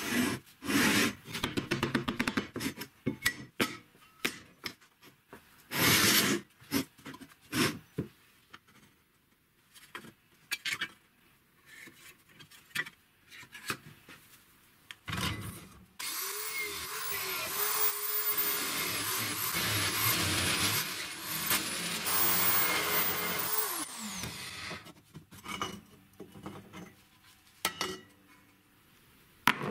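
A hand file scraping along steel square tubing in irregular strokes, with the clatter of the tubes being handled. Partway through, a bench drill press runs for about eight seconds and then spins down.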